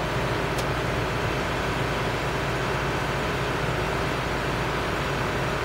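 Steady low electrical hum under a broad hiss, with one faint click about half a second in.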